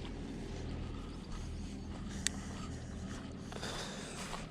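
Footsteps and rustling as a person walks along a pond bank, with one sharp click about two seconds in.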